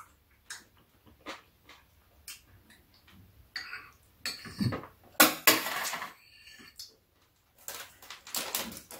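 Metal spoons and chopsticks clicking and scraping against ceramic bowls as two people eat. The clicks are scattered, with a louder, noisier stretch about five seconds in.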